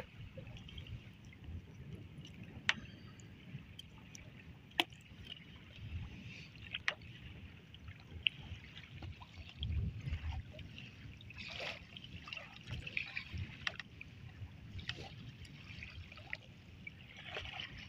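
Wind buffeting the microphone and river water lapping against a small wooden dinghy in choppy water, with scattered small clicks as a gill net is hauled in over the side by hand.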